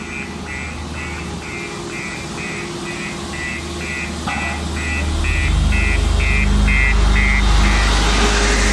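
Reversing alarm on heavy road-construction machinery beeping about three times a second, over an engine rumble that grows louder about five seconds in; the beeping stops near the end.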